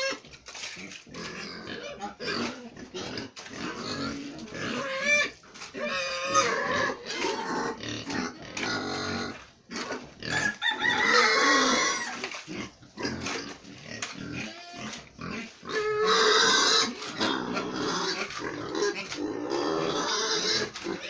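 Pigs squealing over and over, the calls wavering in pitch, with the loudest squeals about halfway through and again about three-quarters of the way through.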